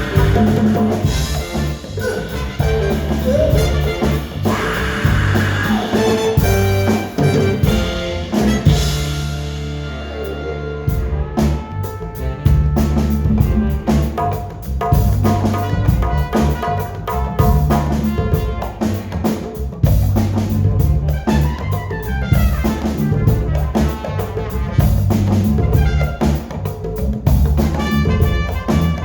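Afrobeat band playing live: drum kit and a repeating bass line under horn lines. The high end drops out briefly about a third of the way in, then the full band comes back in.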